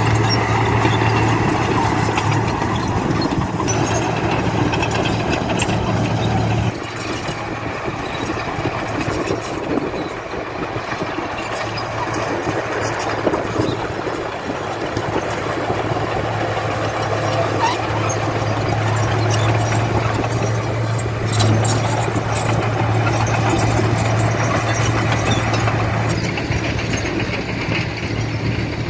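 Diesel engine of heavy earthmoving machinery running steadily, with a drop in level about seven seconds in.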